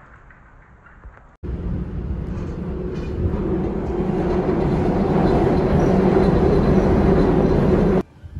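A train running on an elevated track overhead: a loud, steady rumble that starts suddenly about a second and a half in, builds over several seconds, and cuts off abruptly near the end.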